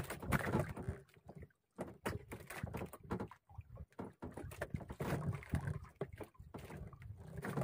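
A nylon handline hauled in hand over hand aboard a small wooden outrigger boat: light, irregular knocks and rubbing against the hull.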